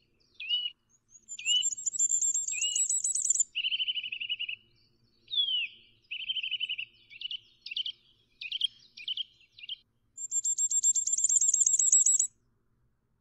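Small songbirds chirping in short high notes, with two fast, high trills, one near the start and one near the end.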